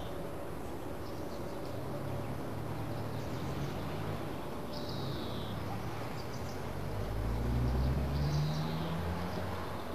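Outdoor birdsong ambience over a steady hiss, with short falling chirps about halfway through and again near the end, and a low rumble that swells about seven seconds in.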